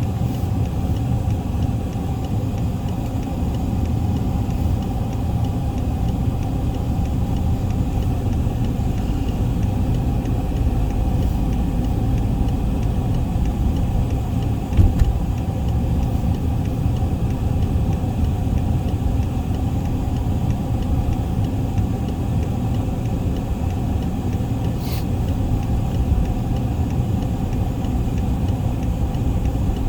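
Steady low rumble of a car, engine and road noise without a break, with a brief knock about 15 seconds in and a short click about 25 seconds in.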